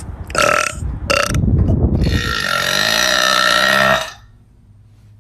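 A woman burping loudly: two short burps, then one long burp of about two seconds that stops abruptly.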